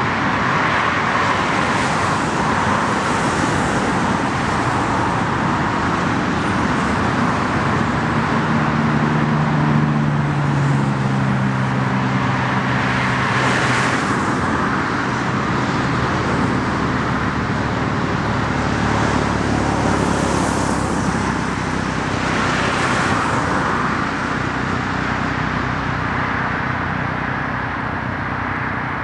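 Steady road traffic noise, with several cars swelling past and a low engine hum for a few seconds near the middle.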